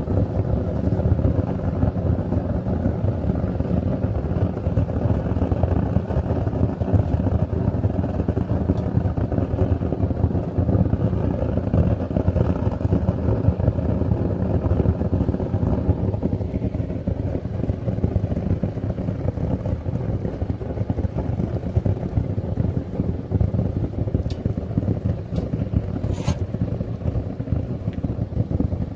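Homemade furnace's propane burner running, a steady, loud low rush of flame and blown air. About halfway through the higher part of the rush eases off, and a short sharp sound comes near the end.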